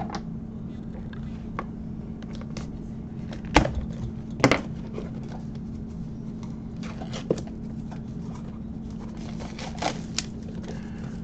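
Cardboard Pokémon Elite Trainer Box being handled and opened by hand: scattered light taps and clicks, with two louder knocks about three and a half and four and a half seconds in, over a steady low hum.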